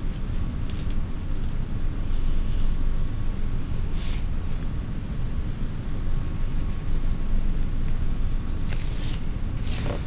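Steady low background rumble with a faint steady hum, over which a Sharpie marker scratches faintly on paper in short strokes, around four seconds in and twice near the end.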